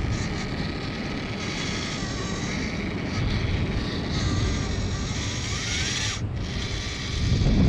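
Small RC rock crawler's motor and gearbox whining as it creeps over rock, the whine rising in pitch about two-thirds of the way through. Wind buffets the microphone throughout, with a louder gust of rumble near the end.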